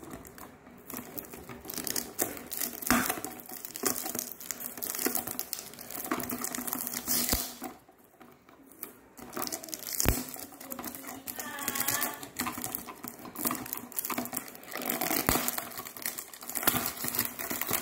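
Clear cellophane wrap being peeled and torn off a perfume box by hand, crinkling and crackling on and off, with a few sharp clicks and a short quieter pause partway through.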